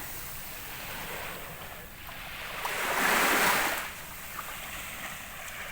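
Sea waves washing in on the shore: a steady surf hiss with one wave swelling and fading about three seconds in.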